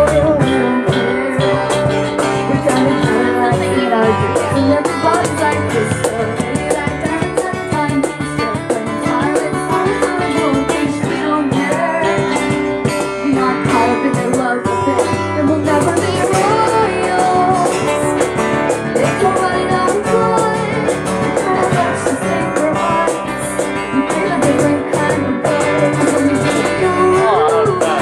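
A band playing a song live: a woman sings into a handheld microphone over a Music Man StingRay electric bass and an electronic keyboard.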